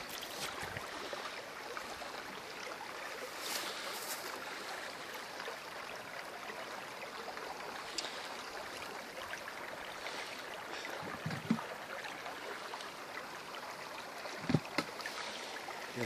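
Small forest stream running with a steady babble of flowing water. A few brief low thumps come in the last few seconds.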